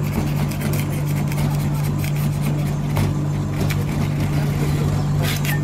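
Metal spatula scraping and clicking across the frozen steel plate of a rolled-ice-cream machine as the ice cream is rolled up. Under it runs a steady low machine hum, the machine's refrigeration unit keeping the plate frozen.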